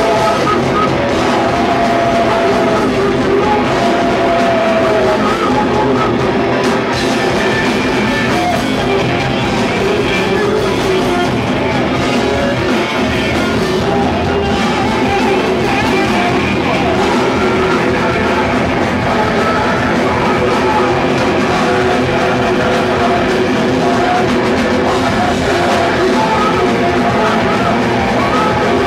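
Hardcore band playing live: loud, dense rock music with drum kit and singing.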